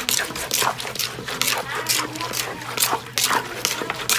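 Wooden pestle pounding and a plastic spoon turning shredded green papaya in a clay mortar: a quick, steady series of knocks and scrapes, about three to four a second.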